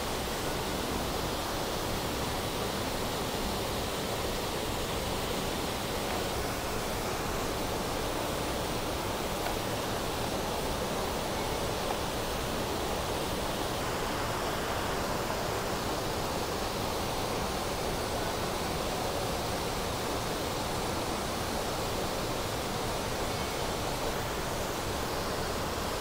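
Shallow rocky river flowing, a steady rush of water over stones.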